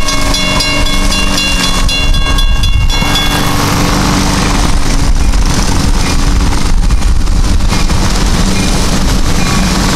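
Pair of EMD GP38-2 diesel locomotives approaching with their V16 engines running and a rising rumble of wheels on rail. A grade-crossing warning bell rings over them for about the first three seconds, then stops.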